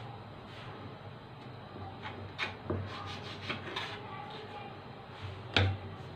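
Kitchen knife trimming the end of a rolled dough log on a marble countertop: soft scraping with a few short knocks of the blade against the stone, the loudest knock near the end.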